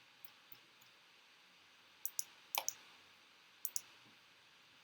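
Three computer mouse clicks, each a quick double tick of button press and release, between about two and four seconds in, over quiet room tone.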